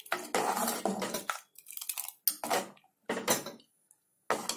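Metal ladle scraping and clinking against the sides of an aluminium pressure cooker as it stirs a thick chickpea gravy: one longer run of strokes, then several short irregular scrapes with pauses between them.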